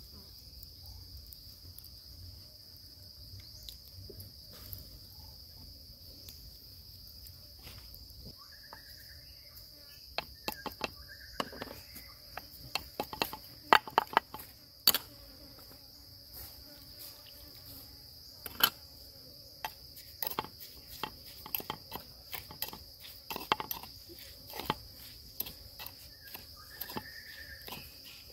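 Steady high-pitched drone of insects, with a run of sharp clicks and knocks starting about ten seconds in and a few brief chirps.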